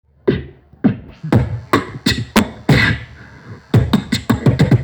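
Beatboxing, drum sounds made with the mouth: separate kick- and snare-like hits about two a second, then a quicker run of hits near the end.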